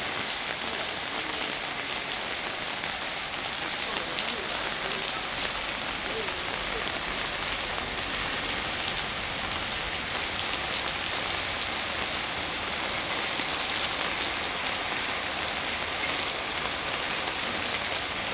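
Steady rain falling on wet ground: an even hiss with scattered taps of single drops.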